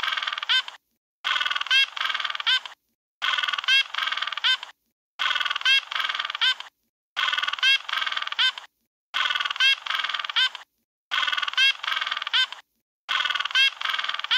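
African penguin braying call, one call of about a second and a half repeated the same way about every two seconds, with dead silence between the repeats.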